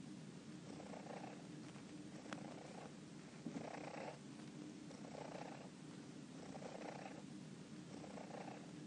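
A domestic cat purring quietly, swelling and easing about once a second as it breathes in and out.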